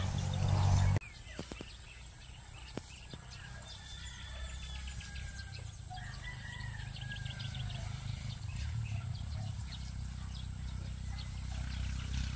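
Rural farmland ambience: small birds chirping and a rooster crowing faintly, over a steady high-pitched tone and a low rumble. A louder rumble cuts off abruptly about a second in.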